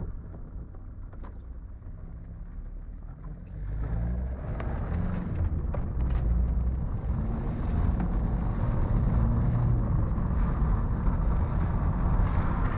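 Car driving, a steady low engine and road rumble that grows louder about three and a half seconds in and then holds steady, with a few faint rattles.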